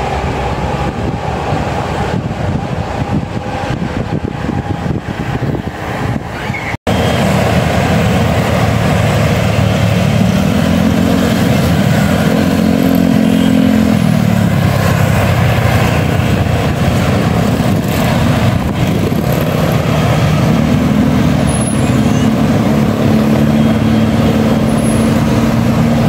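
Road traffic led by a heavy diesel vehicle's engine pulling hard up a bend. Its low engine note rises and falls twice as it revs and changes gear. The sound breaks off for an instant about seven seconds in and is louder afterwards.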